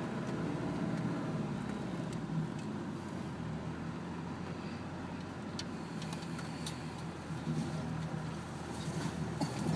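Vehicle engine running at low revs, heard from inside the cabin as the vehicle crawls along a rough off-road track: a steady low hum, with a few faint clicks and knocks.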